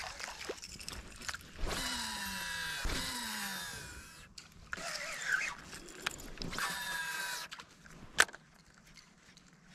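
Fishing reel being cranked in two bursts of a few seconds each, a whirring whose pitch glides with the cranking speed, then a sharp click near the end.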